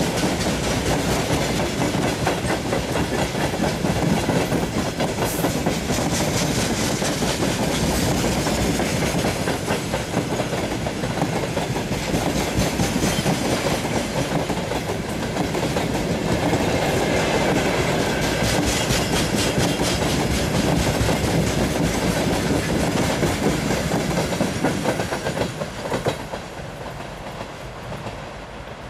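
Long freight train of open wagons rolling past close by, with wheels clicking rhythmically over the rail joints. About 26 seconds in, the last wagon passes with a final clack and the sound drops away to a fainter rumble as the train recedes.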